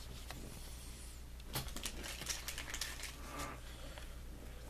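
Trading cards and their plastic sleeves and wrappers being handled: faint crinkling and quick clicks, busiest from about a second and a half in, over a low steady hum.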